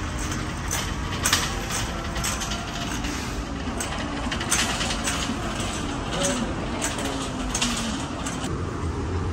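Wire shopping cart rolling over a concrete floor, its wheels rumbling steadily while the basket rattles with irregular sharp clinks, the loudest about a second in and again halfway through. Faint voices in the background.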